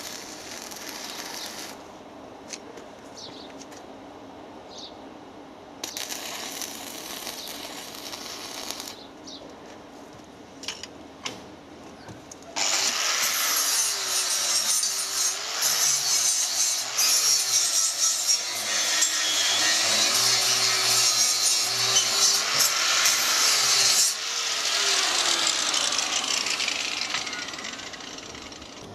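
Two short bursts of stick-welding arc crackle as tack welds go onto a steel gate frame, with a few sharp clicks between them. Then an angle grinder starts and grinds the steel welds, loud and continuous, its pitch wavering as it is worked; near the end it eases off and fades out.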